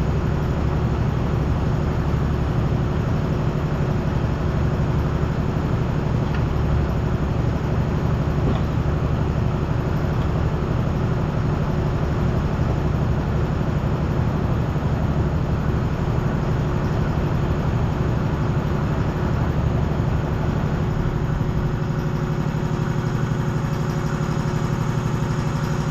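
A motor or engine running steadily with a low, pulsing rumble. About twenty seconds in, its lowest part drops away.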